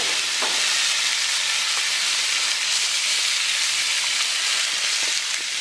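Marinated monkfish fillets sizzling on a very hot grill pan: a steady hiss.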